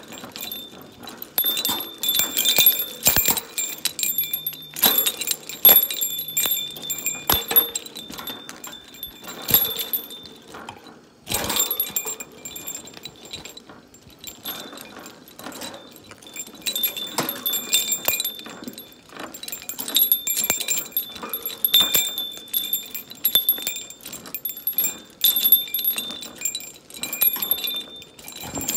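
A metal cage toy, bell and chain, jingling and ringing over and over as a pet bird plays with it. Quick clicks and knocks run through it, with short pauses around a third of the way in and near the middle.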